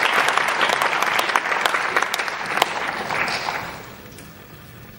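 Audience applauding, a dense patter of hand claps that dies away about three and a half seconds in.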